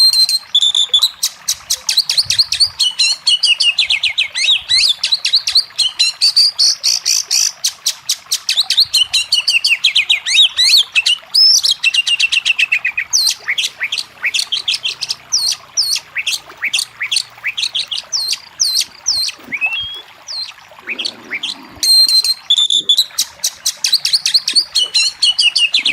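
Oriental magpie-robin singing hard, with a fast, unbroken stream of sweeping whistled notes and rattling trills, many notes a second. There is a short pause about three-quarters of the way through.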